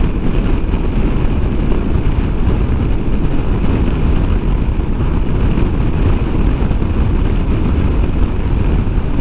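Wind rushing and buffeting over the microphone of a motorcycle ridden at road speed, a steady low rush that buries the engine note.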